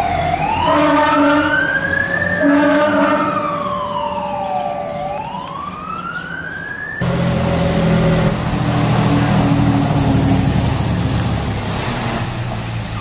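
A fire engine's siren wailing, its pitch sweeping slowly up and down about every five seconds, over steady lower tones. About seven seconds in, the sound cuts abruptly to louder, rougher fire-truck engine and road noise with a low steady horn-like tone.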